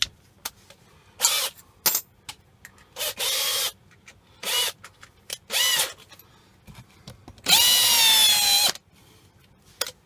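Power drill run in five short bursts, each whining up in pitch as the motor spins up, boring into a block of wood. The last run, near the end, is the longest.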